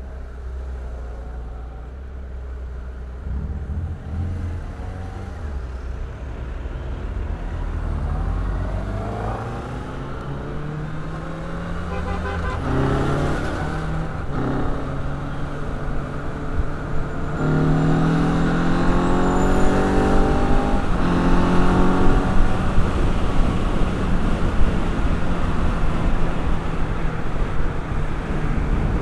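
Motorcycle engine heard from the rider's helmet camera, accelerating through the gears: the engine note rises, drops back at each shift and rises again, then holds fairly steady near the end. Wind and road noise grow as the speed picks up.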